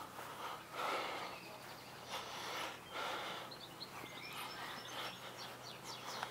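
Small birds chirping here and there, over soft rushing swells close to the microphone about once a second.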